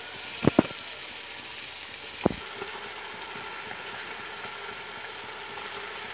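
Raw country chicken pieces dropped by hand into a non-stick pot of frying onion and tomato: two quick dull thuds about half a second in and another a little after two seconds, over steady sizzling.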